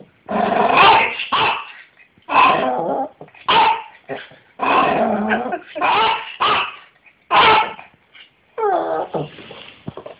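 A 15-year-old Yorkshire Terrier barking: a string of about nine loud barks, some short and some drawn out, then a falling whine near the end.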